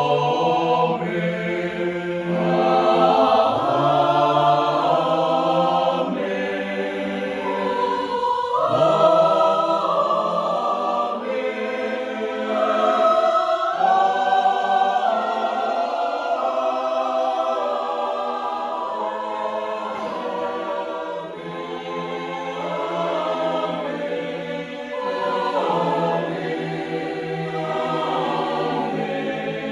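A choir rehearsing, singing in several voice parts at once with long held chords that shift together.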